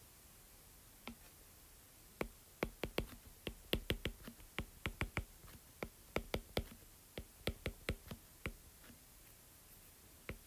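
Stylus tapping against a tablet's writing surface while handwriting: an irregular run of short, sharp taps, several a second, from about a second in until about eight and a half seconds in.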